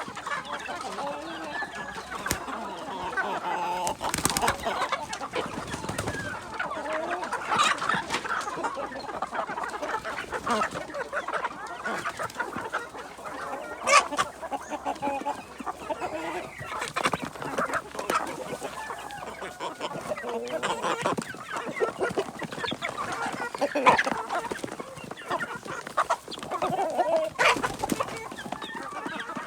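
A flock of kampung-Bangkok crossbred chickens clucking continuously, many birds calling over one another, with a few sharp knocks in between.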